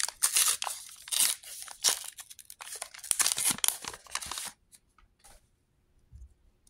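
A paper Star Wars Unlimited booster pack being torn open, its wrapper rustling and crinkling in a quick run of tears that stops about four and a half seconds in.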